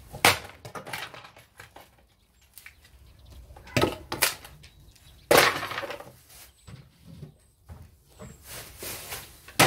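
Wooden drawers being thrown down and smashed apart on patio slabs: a series of sharp wooden cracks and clatter. The loudest come soon after the start and about five seconds in, with smaller knocks between.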